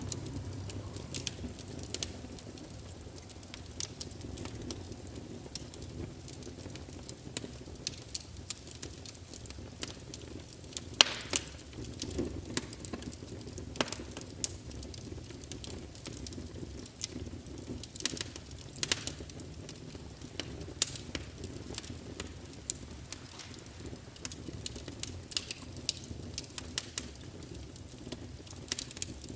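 Wood log burning: a low steady rumble of flame with irregular sharp crackles and pops, the loudest pop about eleven seconds in.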